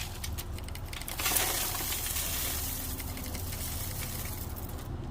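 Mixed bird seed with peanuts and sunflower seeds pouring into a bird feeder: a few clicks, then a dense dry rattling rush starting about a second in and lasting nearly four seconds, over a low steady rumble.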